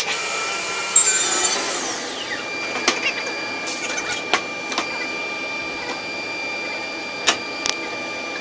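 Woodworking boring machine running with a steady high whine, with sharp clicks and knocks as a wooden plank is positioned on its table.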